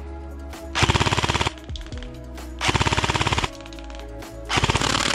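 ARES AR308M airsoft electric gun firing three short full-auto bursts, each a rapid rattle of gearbox cycles under a second long, about a second apart. This is the firing test in which its piston head, badly screwed on at the factory, came loose and made a bad noise. Faint background music runs underneath.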